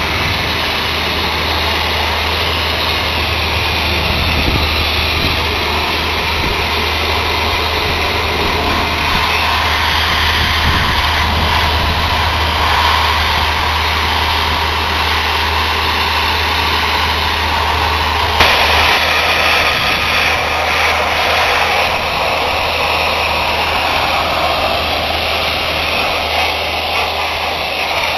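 Sandblasting: a loud, steady rushing hiss of abrasive blasting over a low engine drone. The drone weakens abruptly about two-thirds of the way through while the hiss continues.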